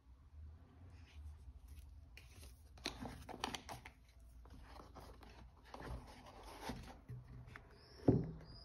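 A padded watch cushion being fitted into a cardboard watch box and the box closed: soft rustles and scrapes, busiest about three seconds in, then one low thump near the end.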